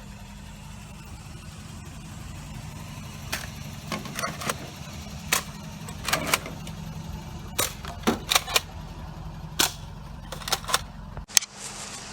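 A Nerf ball blaster fired over and over, about fifteen sharp pops coming irregularly, often in quick pairs or triplets, over the steady low hum of a car driving. The hum cuts off suddenly near the end.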